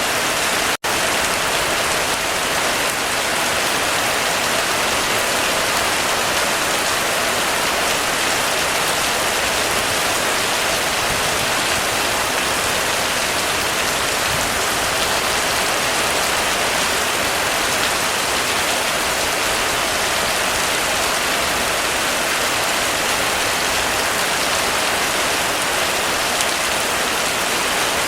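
Heavy rain falling steadily on a roof, a dense even hiss of drops. It cuts out for a split second a little under a second in.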